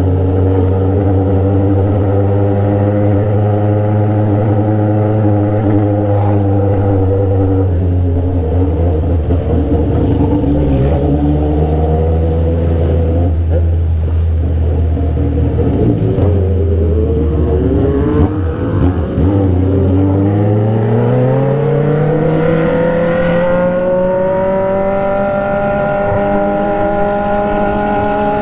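Honda Hornet motorcycle with a straight-pipe exhaust, no muffler, running at low, fairly steady revs for about twenty seconds. It then revs up in one long rising pull as it accelerates away.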